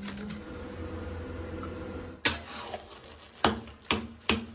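A metal spatula knocking and scraping against an iron kadhai while grated carrots are stirred. There is one sharp clack just past halfway, then a quicker run of clacks about every half second near the end, after a low steady hum.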